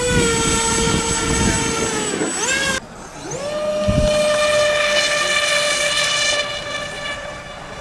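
RC foam seaplane's electric motor and propeller whining under power as it runs across the water on takeoff. The pitch climbs and holds steady, then drops and cuts off just under three seconds in. It climbs again to a slightly higher steady whine that fades near the end.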